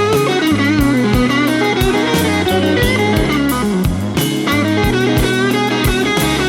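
Blues-rock backing music: an electric guitar lead with bending notes over bass and drums.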